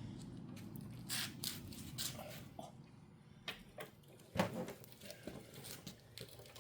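Scattered scraping and crumbling of play sand as a cast aluminum shark is worked out of its sand mold, with a sharper knock about four seconds in.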